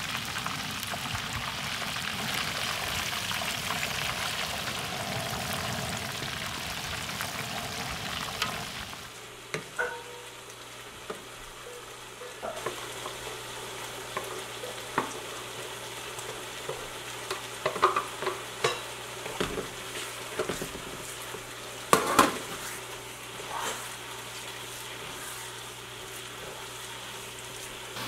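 Whole walleye deep-frying in a wok of hot oil, with a steady loud sizzle. About nine seconds in it gives way to a quieter sizzle of chili-tomato sauce in a frying pan, broken by scattered sharp clicks and taps as green onions are added and stirred in.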